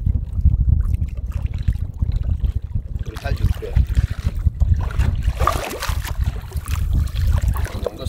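A hooked shark splashing and thrashing at the water's surface beside the boat, the splashes heaviest a little past the middle. A constant low rumble runs under it.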